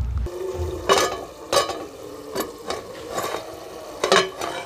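Steel lid and ladle clinking against a steel cooking pot: about five sharp metallic clinks, each ringing briefly.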